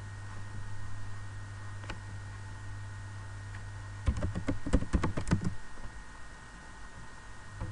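Computer keyboard typing: a quick run of about six keystrokes about four seconds in, entering a short word. A single click comes near two seconds in, and a steady low hum runs underneath.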